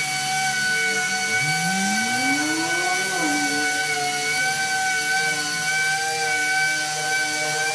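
Pneumatic random-orbital palm sander running on a painted truck tailgate with a 2000-grit Super Buflex disc, giving a steady high whine. About a second and a half in, a lower tone rises for a second or so and then drops back.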